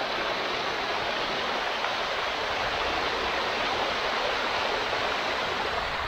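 Radau waterfall: a steady, unbroken rush of water cascading down a rock face.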